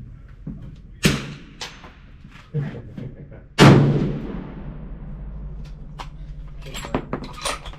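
Two rifle shots. A sharp crack comes about a second in. The loudest is a big-bore Browning X-Bolt in .300 PRC firing about three and a half seconds in, with a long fading echo. A few small clicks and knocks follow near the end.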